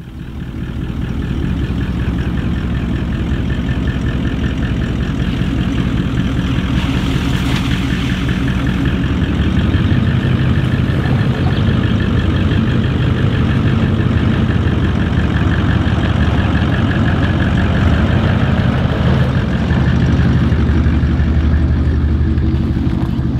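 Vehicle engine running steadily, getting slightly louder about ten seconds in.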